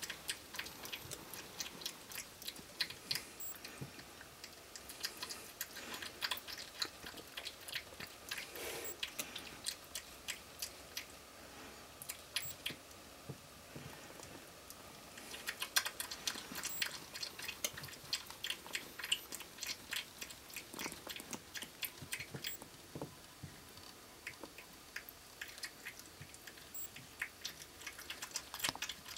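A North American porcupine chewing corn: a rapid run of crisp clicking crunches from its teeth, easing off into quieter pauses a couple of times.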